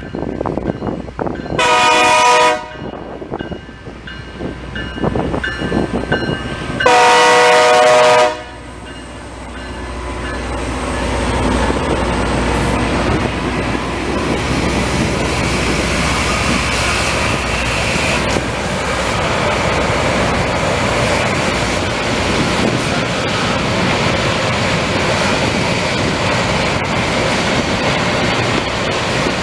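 A Loram rail grinding train's horn sounds twice, a short blast and then a longer one about five seconds later. From about ten seconds in, the grinding cars pass and their rotating grinding stones on the rail heads make a steady loud rushing noise as they grind the wavy, pitted rail smooth.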